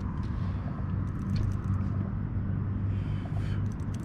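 Steady low motor hum at a fixed pitch. Scattered light clicks come twice, in the middle and near the end, as a baitcasting reel is cranked against a fighting flathead catfish.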